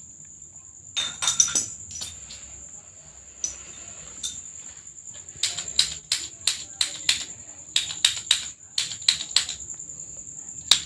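Sharp clicks from wet-cupping instruments, a few scattered at first and then a quicker run of about two to three a second, over a constant high-pitched whine.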